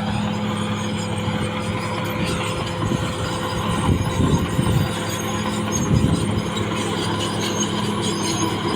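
CAT D6R XL crawler bulldozer's diesel engine running steadily under work, with irregular rattling from the machine around the middle.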